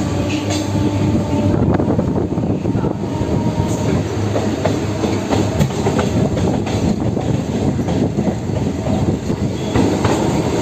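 Broad-gauge suburban electric local train running at speed, heard from inside the coach: a steady rumble with the wheels clattering over the rail joints.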